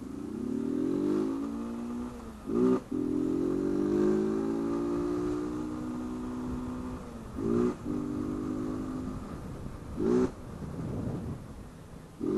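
Single-cylinder engine of a Honda CG 160 Fan motorcycle pulling under throttle, its pitch rising and then holding. Its airbox intake snorkel has been removed, making it loud. A short loud burst breaks in about four times, every few seconds.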